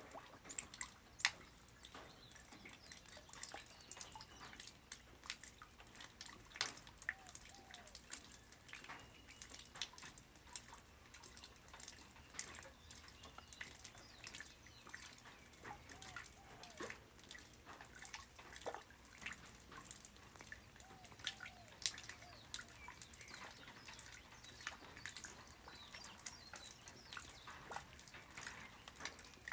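Light rain falling on the ground: many irregular, scattered drops and drips.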